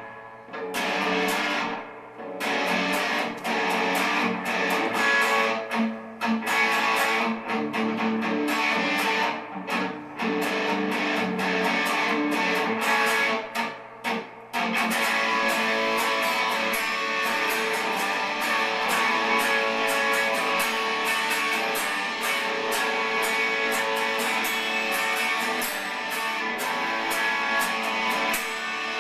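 Guitar being strummed, stop-start with short breaks through the first half, then strummed continuously from about halfway through.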